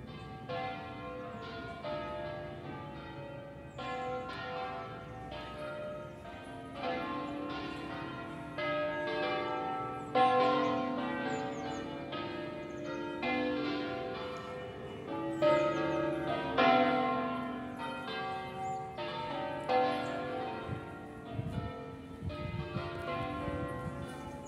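Church bells swing-ringing in the Italian 'distesa' manner: the eight largest bells of a twelve-bell ring in B-flat, cast by the Picasso foundry in 1964, swinging freely so their strokes fall in a dense, irregular tumble of overlapping pitches that ring on.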